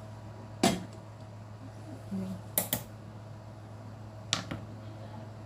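A few sharp clicks and knocks of a mug and tableware being handled on a hard surface, the loudest about half a second in and a quick pair near the middle.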